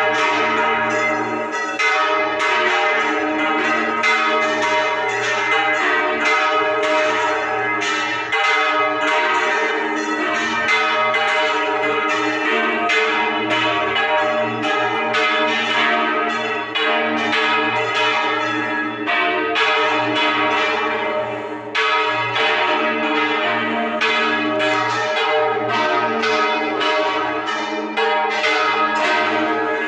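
Church bells rung in full-circle swing (Spanish volteo), all the bells of the tower together. Their strikes come fast and irregular, with the tones overlapping in a dense, continuous peal.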